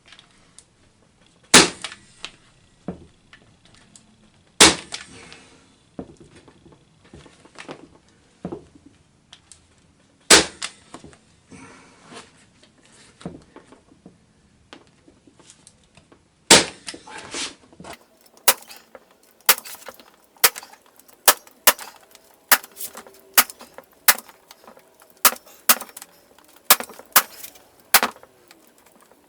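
Sharp knocks of blows struck on a workbench: four single, widely spaced strikes, then about two-thirds of the way in a quicker run of lighter strikes about every half second.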